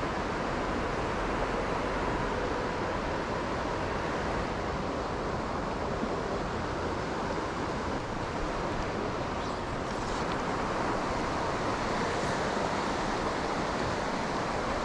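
Steady rush of a river's current flowing over rocks.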